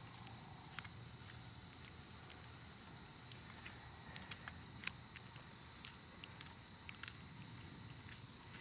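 Faint, steady high-pitched insect chirring from crickets, with scattered soft clicks and rustles of hands and knife working on a deer carcass in dry leaves.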